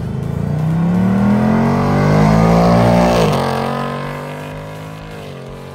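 A car's engine accelerating past, its note climbing and growing louder as it approaches, then falling sharply in pitch just after three seconds in as it goes by, and fading away.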